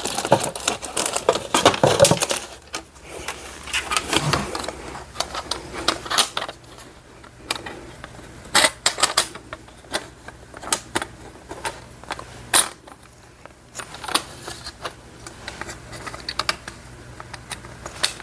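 Irregular clicks, knocks and rustling of things being picked up and moved about while someone rummages for a paper trimmer, busiest in the first couple of seconds.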